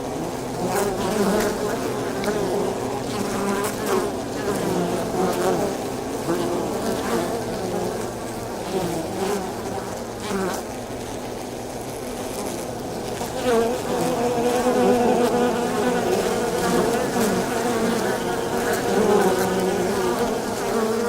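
A mass of bees buzzing at a beehive: a dense hum of many overlapping wing-beat tones, each wavering in pitch, with a few faint clicks. The hum swells somewhat louder about two-thirds of the way in.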